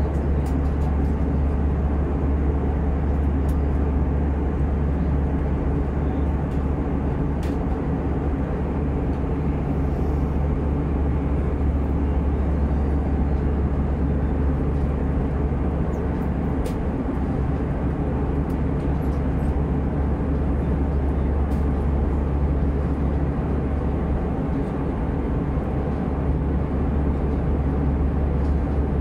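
Steady cabin noise of an Airbus A320 in flight, heard from inside the cabin: an even engine and airflow roar, deepest and strongest in the low rumble, unchanging throughout.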